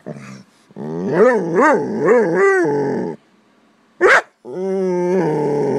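A dog whining and howl-talking in pitch-swooping waves, then one short sharp yip, then a long held whine: pleading to be let out to pee.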